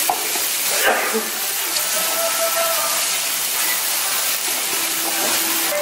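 Dak galbi, spicy marinated chicken with onions and leeks, sizzling in a hot pan on a tabletop burner with a steady hiss as it is stirred with wooden spatulas; a short spatula scrape about a second in.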